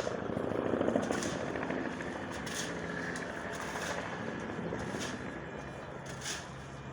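Police helicopter flying overhead: a fast rotor chop, loudest about a second in, settling into a steadier drone. A few brief sharp noises are scattered through it.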